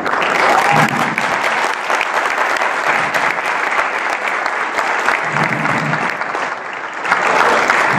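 Audience applauding steadily, the clapping growing louder near the end.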